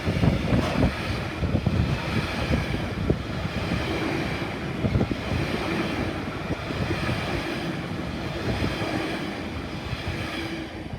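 Freight train wagons rolling past on the rails, a steady low rumble with wind buffeting the microphone, easing a little near the end.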